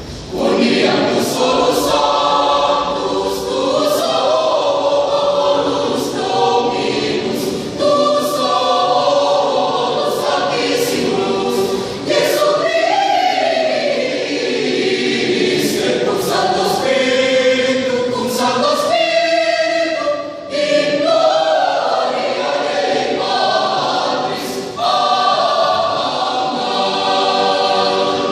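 Youth choir singing a religious song together, with two brief dips in the sound in the second half.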